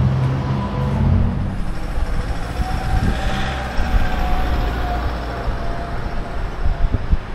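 Street traffic: a motor vehicle's engine running with a low, steady rumble.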